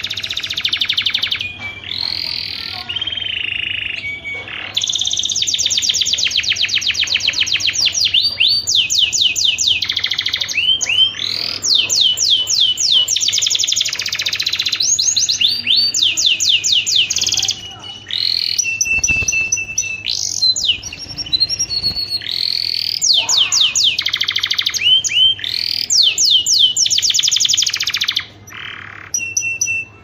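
Domestic canary singing a long mating-season song of fast trills, rolling glides and short whistled notes, with brief breaks between phrases.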